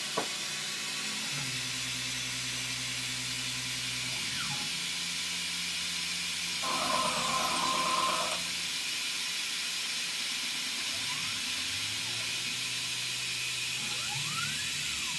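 Tormach CNC mill spindle turning a 3-inch, 30-tooth slitting saw, planned at about 500 RPM and 15 inches a minute, parting off a piece of 6061 aluminum, over a steady hiss from the coolant nozzles and a low machine hum. About seven seconds in, the sound grows louder with a ringing tone for a second or two.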